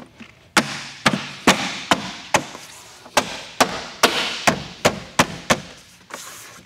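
Jeep Wrangler JL's plastic inner tailgate trim panel being smacked onto the tailgate by hand, seating its push clips: about a dozen sharp smacks over some five seconds.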